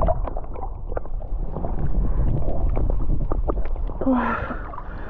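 Underwater sound picked up by a waterproof camera held below the sea surface while swimming: a steady low rumble of moving water with scattered short clicks. About four seconds in the camera comes up to the surface and the sound briefly opens up.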